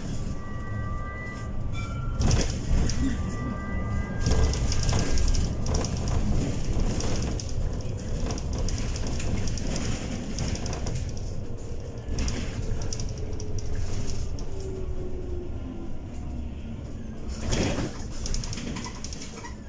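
Inside a Bolloré Bluebus 12 m battery-electric bus on the move: low road and body rumble with the electric drive's whine, whose pitch falls slowly over several seconds as the bus slows.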